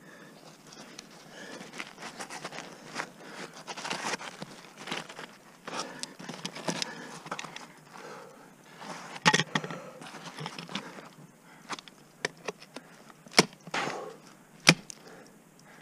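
Ice tool picks being swung and struck into steep waterfall ice, a run of sharp thwacks with crunching and chipping of ice between them; the three loudest strikes come in the second half.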